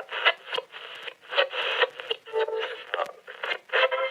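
Old radio being tuned across the dial: bursts of static, whistles and brief fragments of stations' voices and tones that cut in and out in quick succession, thin and narrow as from a small radio speaker.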